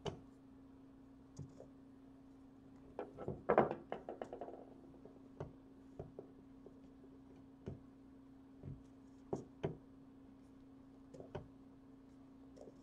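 Scattered clicks and knocks of large pliers squeezing and working the plastic cover of an LED bulb to break it free, with a quick run of clicks about three seconds in, the loudest. A faint steady hum runs underneath.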